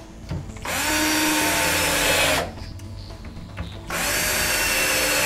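Cordless drill driving screws through a plastic corner brace into a cabinet's particleboard. The motor runs twice, each time for about a second and a half, spinning up and then holding a steady pitch.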